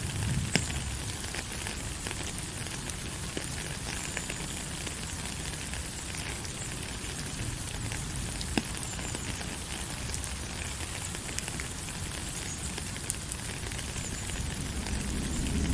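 Steady rain falling, an even hiss with scattered sharp ticks of single drops and a low rumble underneath.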